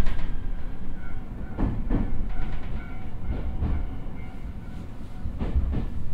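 Running sound inside the cabin of a JR East E127-0 series electric multiple unit: a steady low rumble of wheels on rail, with wheels clacking over rail joints in pairs that recur about every two seconds.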